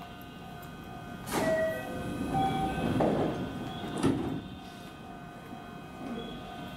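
Sliding doors of a JR West 223-series electric train closing at the platform before departure: a sharp clunk, a short hiss, then a firm thump about four seconds in.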